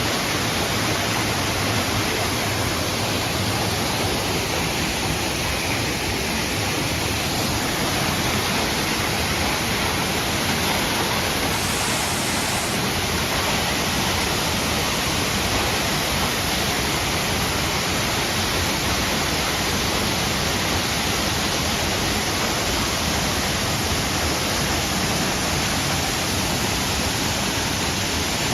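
Waterfall: a steady, loud rush of falling water, heard up close where its spray reaches.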